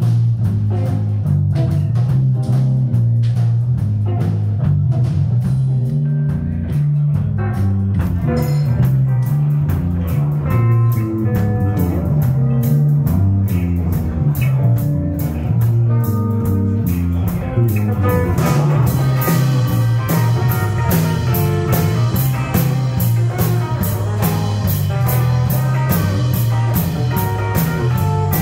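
Live trio of electric guitar, electric bass and drum kit playing an instrumental passage with no singing: guitar notes over a moving bass line, with steady rapid cymbal strokes coming in about two-thirds of the way through.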